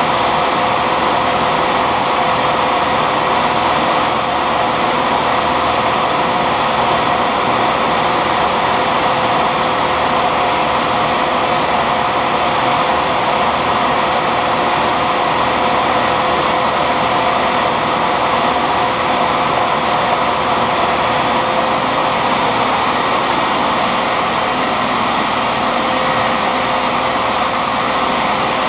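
Shopsmith combination woodworking machine running as a lathe, its motor and spindle giving a steady, unbroken whine.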